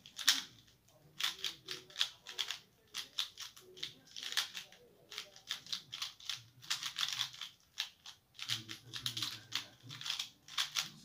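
QiYi Valk 3 M magnetic 3x3 speedcube being turned fast in a speedsolve: rapid flurries of crisp plastic clicking and clacking from the layers, with short pauses between flurries.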